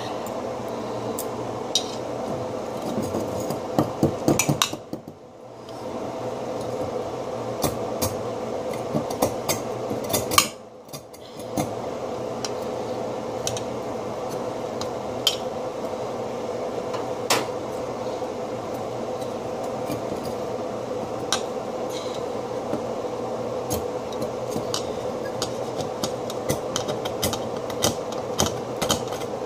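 A metal utensil scraping and chipping at a block of ice frozen in a metal bowl, with a steady scraping and frequent small knocks and clinks of metal on ice and metal. It stops briefly twice, about five and about eleven seconds in.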